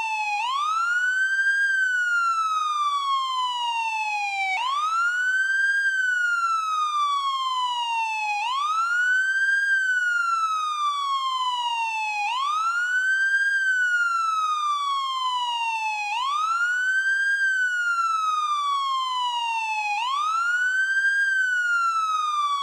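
American police siren on the wail tone. Each cycle sweeps up quickly and then slides slowly back down, repeating about every four seconds.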